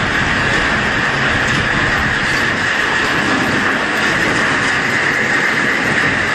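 Scrap metal crusher running, a loud, steady metallic clatter and grind with a strong high ringing tone throughout.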